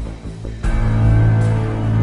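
Background music: sustained low drone-like chords with a faint regular beat, swelling louder a little past halfway.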